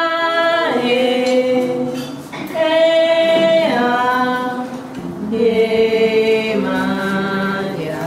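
Two women singing a song together in long held notes, their two voices at different pitches, with brief falling slides between notes.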